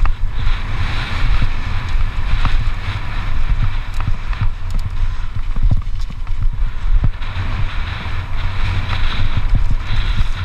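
Wind buffeting the microphone in a heavy low rumble as a mountain bike descends a dirt trail at speed, with tyres hissing over loose dirt and frequent small knocks and rattles from the bike over bumps.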